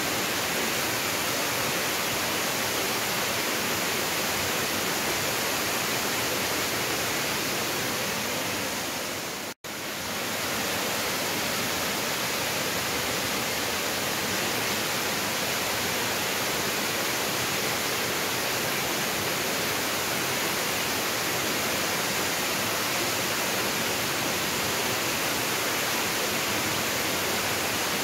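Waterfall rushing, a loud steady roar of falling water. It cuts out for an instant about ten seconds in and swells back within a second.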